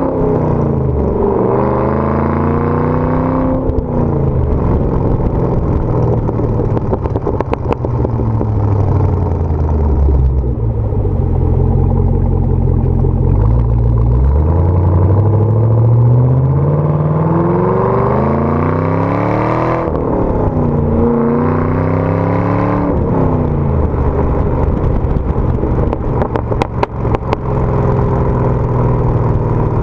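Chevrolet Camaro SS 6.2 L V8 running through a Hooker Blackheart axle-back exhaust with no mufflers while being driven. The engine revs climb and fall several times, with a long pull in the middle that drops off sharply, and a few short crackles.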